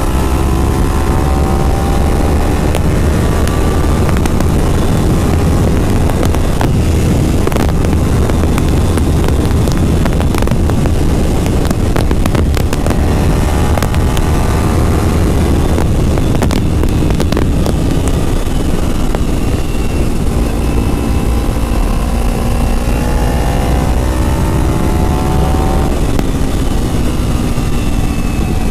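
Kawasaki Ninja motorcycle engine running at road speed, mixed with heavy wind rush on the microphone. The engine note slides up and down with the throttle and rises near the end, with a scatter of sharp knocks on the microphone in the middle.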